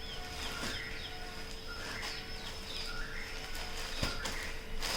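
Birds chirping: short chirps repeating every second or so, over a faint steady hum, with a few sharp clicks.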